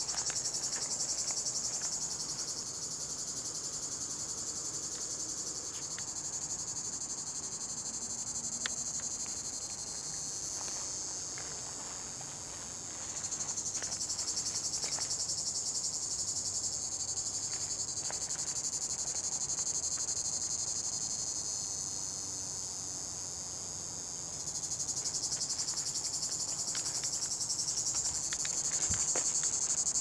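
A male Tibicen plebejus (Lyristes plebejus) cicada singing in a continuous high-pitched buzz that swells louder about halfway through and again near the end. The song is worn, which the recordist puts down to a tymbal membrane deteriorated by age in an old male at the end of the season.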